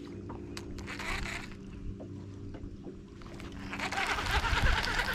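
Electric bow-mounted trolling motor humming steadily on a bass boat, with a few light clicks early on. From about three and a half seconds in, a rushing wind noise on the microphone rises and grows louder.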